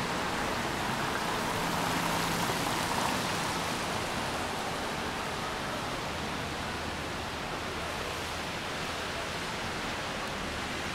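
Steady rain falling, an even hiss that swells slightly about two to three seconds in.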